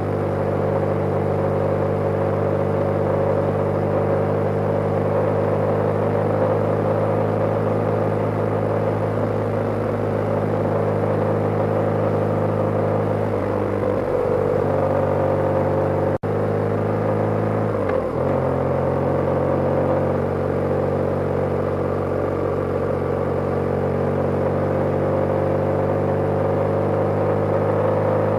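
BMW GS motorcycle engine running at a steady road cruise, heard from on the bike with road and wind noise. The engine note changes briefly twice near the middle, as in a throttle or gear change, and the sound drops out for an instant just past halfway.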